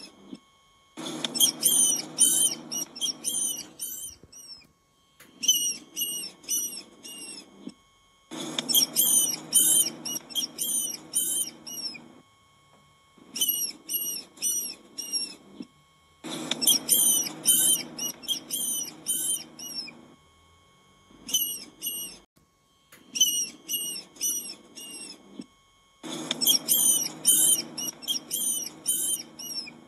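Mouse or rat squeaking in quick series of high, chirping squeaks, several a second, in bursts of one to four seconds with short pauses between. A band of background noise from the recording comes and goes with each burst.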